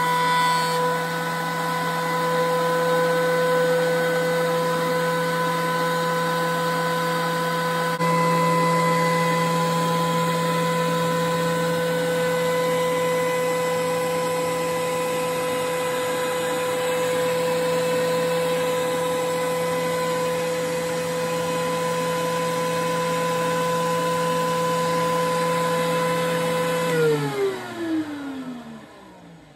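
DeWalt benchtop thickness planer running at a steady high-pitched whine, its fan-assisted chip ejector blowing shavings through the hose into a cloth dust bag. About 27 seconds in it is switched off and winds down, its pitch falling as it coasts to a stop.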